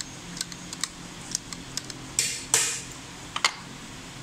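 Metal clicks and light clinks from a Newlong sewing machine head being handled, then two short scraping rasps just past the middle and a sharp double knock as the aluminium head is set down on a concrete floor. A steady low hum runs underneath.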